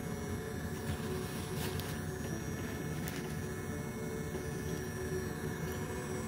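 450 W GJ-8018LCD hot air gun running flat out near its maximum of about 625 °C: a steady rush of air from its fan with a motor hum.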